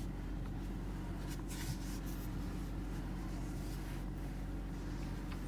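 Steady low hum of a Kia Rio running, heard inside the cabin, with a few soft swishes. No knock or click comes through from the steering, whose rack has just been replaced: the repair has cured the knock.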